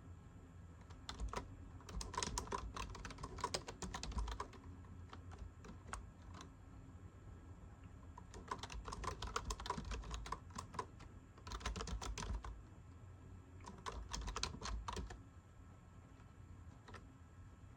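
Typing on a computer keyboard in several quick bursts of keystrokes with pauses between them, plus a few single key presses.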